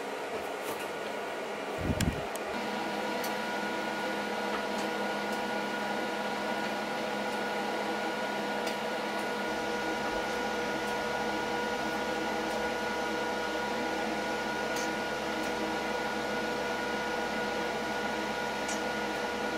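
A thump about two seconds in, then a steady motor hum with a few steady tones from the hydraulic press's pump as it builds load on a 3 mm stainless-steel cable under pull test.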